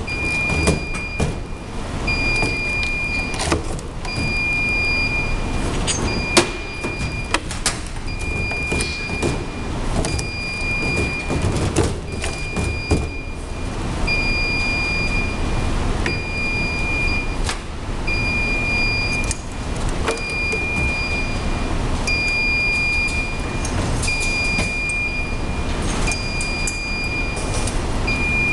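A high electronic beep repeating in short regular pulses, roughly once a second, over steady background noise, with a few sharp clicks and knocks of handling on the steel bench, the loudest about six seconds in.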